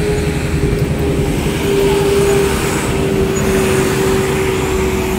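Heavy diesel truck engines labouring slowly up a steep climb in low gear, a dense low rumble with a steady drone at one pitch, mixed with motorcycles passing close by.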